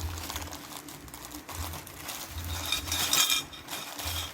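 A parcel being handled and opened: rustling and crinkling with small clicks and taps, loudest about three seconds in.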